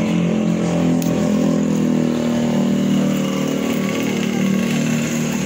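Electric hair clipper running close by with a steady, unbroken buzz.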